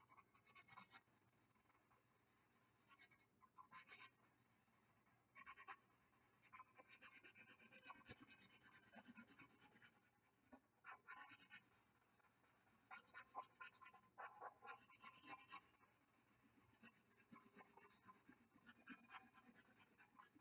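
Faint scratching of a black Sharpie permanent marker on paper as a space is colored in with quick back-and-forth strokes. It comes in bursts from under a second to a few seconds long, with short pauses between.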